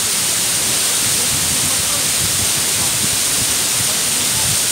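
Mumlava waterfall: water pouring steadily over rock ledges into a plunge pool, a continuous rushing noise that holds the same level throughout.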